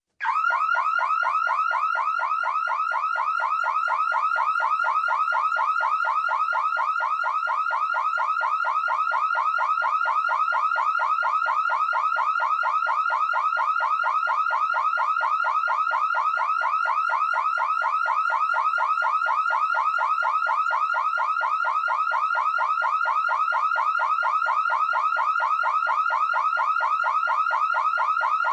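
Electronic alarm siren sounding continuously: a rapid, evenly repeating warble centred around 1 kHz, starting abruptly and holding steady.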